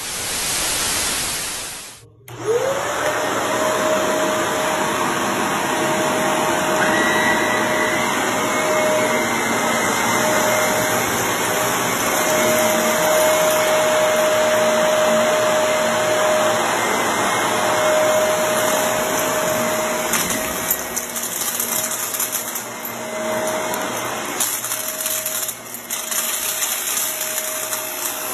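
A vacuum cleaner is switched on about two seconds in, after a brief hiss. Its motor spins up to a steady whine with a rushing of air. Irregular clicks and rattles come in over the last third as it is worked over the floor.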